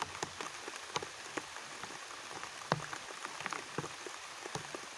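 Rain falling steadily, with many separate drops landing as sharp ticks, one louder than the rest about halfway through.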